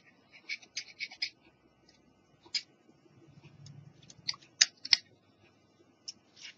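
Small sharp clicks and light scratches of a hand tool and fingers working on the opened mechanism of a portable cassette player. They come in scattered clusters, with a quick run of clicks early and a few louder ones about four to five seconds in.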